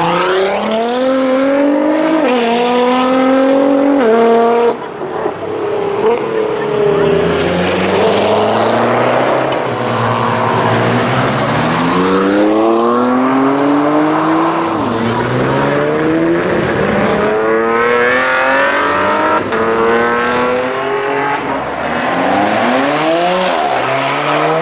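Race-prepared cars accelerating hard on a racetrack. Engine pitch climbs steeply, then falls back at each upshift, several times over.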